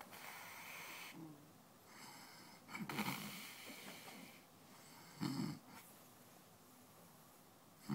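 A sleeping man snoring: a soft breath at the start, then loud rasping snores about three seconds in and again about five seconds in, with another beginning at the very end.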